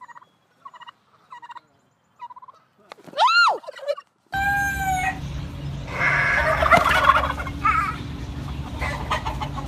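Domestic poultry calling, turkeys among them. Several short, soft clucks come first, then about three seconds in a single loud call that rises and falls in pitch. After an abrupt change, more calls and clucking follow over a steady low hum.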